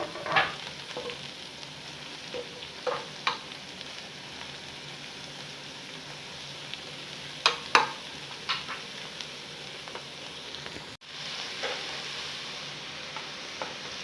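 Food sizzling in a frying pan as it is stirred, with a few sharp knocks and scrapes of a spoon against the pan. The sound drops out for an instant about eleven seconds in.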